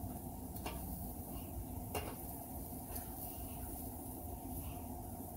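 Thin ribeye steak sizzling on a steel flat-top griddle, with a few sharp clicks of a metal knife and tongs striking the plate as the meat is chopped.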